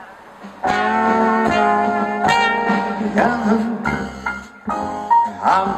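A small band starts playing about half a second in: a brass horn carries a melody of held notes over a walking bass line.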